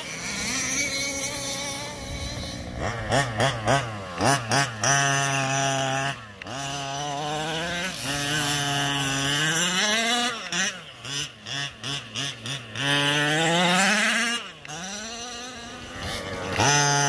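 A 1/5-scale RC car's 27cc two-stroke petrol engine revving up and easing off over and over as it is driven, running well. Twice it gives a quick run of short throttle blips, once about three seconds in and again around eleven seconds.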